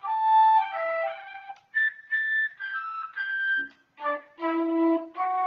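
Akai EWI 5000 electronic wind instrument playing its jazz flute preset: a quick phrase of notes, a brief break about three and a half seconds in, then lower, longer held notes.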